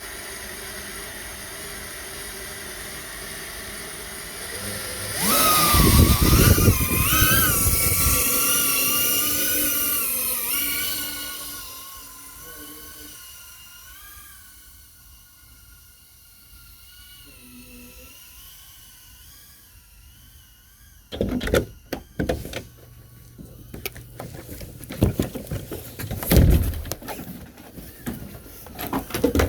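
FPV quadcopter's electric motors whining, jumping much louder about five seconds in and wavering up and down in pitch with the throttle, then fading away over the next few seconds. In the last third, a run of sudden loud bursts.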